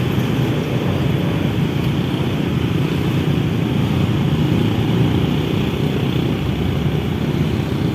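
Container freight train passing, a steady low rumble with no breaks.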